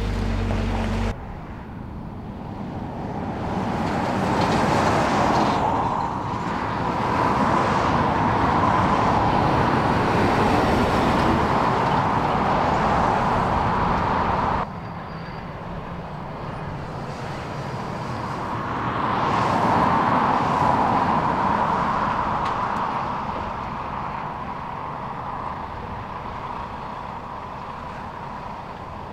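Highway traffic passing: trucks and cars going by, their tyre and engine noise swelling and fading several times, with sudden changes in level about a second in and about halfway through.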